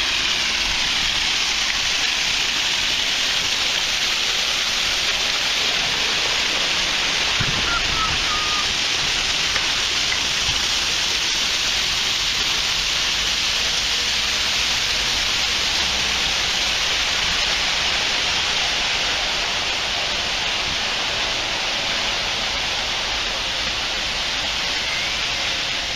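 Artificial waterfall running, with water cascading down in a steady, even rush.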